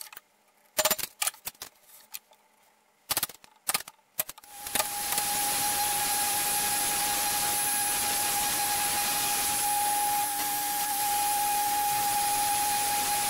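A few scattered sharp knocks as bark is worked off a walnut slab with hand tools. About four and a half seconds in, a handheld power sander starts and runs steadily with a constant whine, sanding the slab's live edge.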